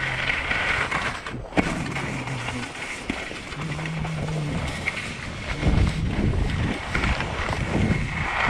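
Skis sliding and carving on groomed snow at speed, a steady scraping hiss, with wind buffeting the camera microphone in gusty low rumbles.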